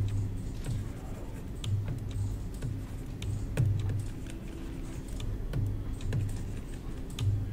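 Irregular clicks of a computer mouse and keyboard, over a low hum that comes and goes.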